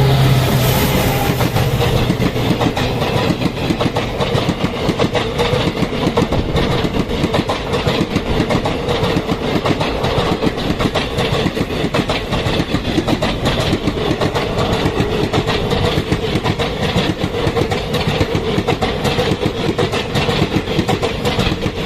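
Express train coaches rolling past close by, their wheels clattering rapidly and steadily over the rail joints. A low diesel locomotive hum fades away over the first couple of seconds.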